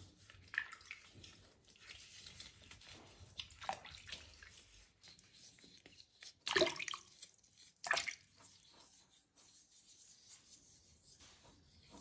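Water sloshing and dripping in a plastic tub as hands wash a baby monkey with leaves. The water sounds are soft, with two louder bursts about six and a half and eight seconds in.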